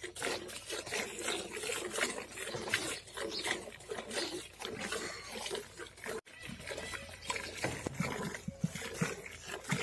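Hand-milking a cow into a steel bucket: milk squirting from the teats into the milk already in the bucket in rhythmic alternating strokes, about two squirts a second. The sound breaks off abruptly about six seconds in and then carries on.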